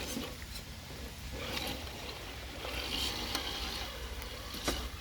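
Steady hiss of light rain, with scattered small ticks.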